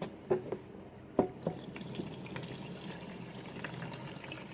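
A few knocks of things being handled, the sharpest just after a second in, then water poured steadily from a glass carafe into the top reservoir of a Bunn pour-over coffee maker.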